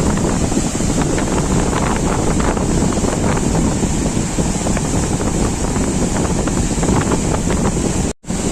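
Loud, steady rush of flood water with wind buffeting the microphone. The sound cuts out for a split second near the end.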